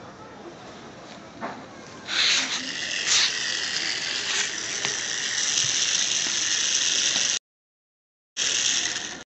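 Solar-powered toy train's small electric motor and plastic gears whirring and rattling as it runs, starting about two seconds in. The sound breaks off for about a second near the end and then starts again.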